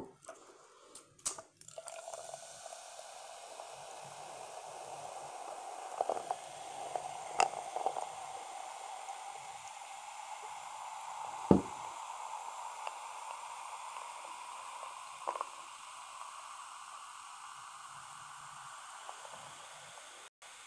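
Ginger ale poured from a can into a glass: a steady pour whose pitch slowly rises as the glass fills, over a faint fizzing hiss. A few light clicks and one sharp knock come about halfway through.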